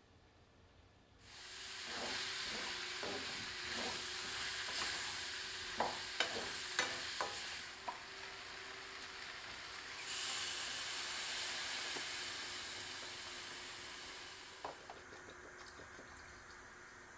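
Cubed potatoes and zucchini sizzling in a hot frying pan as they are stir-fried with garlic and red chili seasoning, with a wooden spoon knocking against the pan. The sizzle starts about a second in and dies down near the end as water is poured in.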